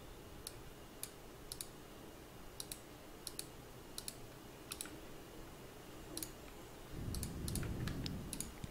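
Computer mouse clicking: a dozen or so faint single and double clicks at irregular spacing, with a faint low rumble for about a second and a half near the end.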